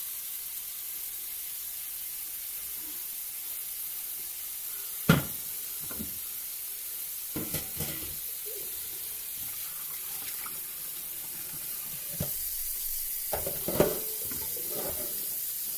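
Tap running steadily into a stainless kitchen sink, with several sharp knocks and clanks of pots being handled, the loudest about five seconds in.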